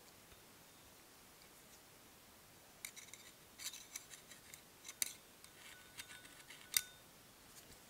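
Steel tool tip scraping and clicking along a worn steel idler shaft from an Argo 8x8, catching in the indent that the bearing has worn into it. It is a faint run of scratchy clicks starting about three seconds in and lasting about four seconds, with the sharpest click near the end.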